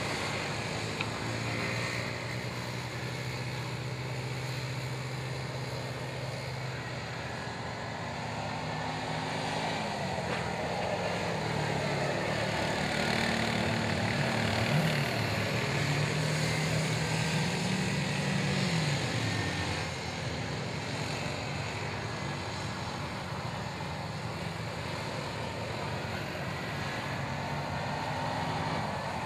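Small youth ATV engines running on a dirt oval. The engine note holds steady at first, then rises and falls as the quads speed up and back off, and fades about two-thirds of the way through.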